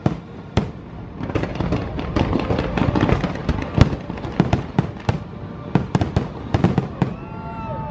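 Aerial fireworks in a dense barrage: rapid sharp bangs and crackling, thickest in the middle stretch, over show music.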